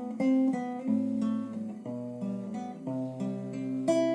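Acoustic guitar playing a picked and strummed passage between sung lines of a folk song, its notes plucked one after another and left to ring.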